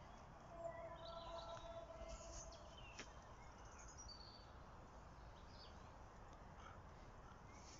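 Near silence: a faint outdoor background with scattered small bird chirps and whistles, and one sharp click about three seconds in.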